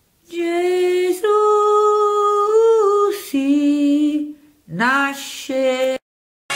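A high, clear voice singing a slow phrase of a few long held notes, 'Gesù, uh, uh, sì, nasce', with a sliding rise in pitch about two-thirds of the way in. The recordists present it as an angel's song captured by metafonia (voices on tape).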